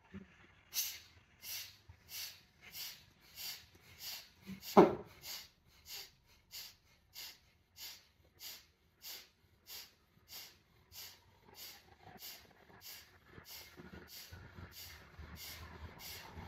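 Rapid, rhythmic forceful exhalations through the nose, about one and a half a second, the pumping breath of a pranayama exercise. One much louder burst comes about five seconds in, and the breaths grow fainter toward the end.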